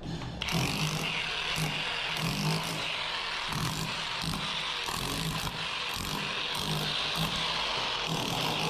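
Power tool cutting into a masonry wall to deepen the recess for a concealed shower diverter, a steady hissing grind that starts about half a second in, with a low pulse repeating under it.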